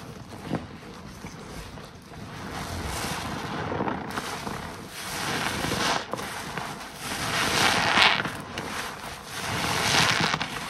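Yellow car-wash waffle sponge, soaked in foamy Pine-Sol suds, being squeezed and wrung by a rubber-gloved hand: wet squelching with crackling foam, in about four swells as each squeeze builds and lets go, loudest a little past the middle.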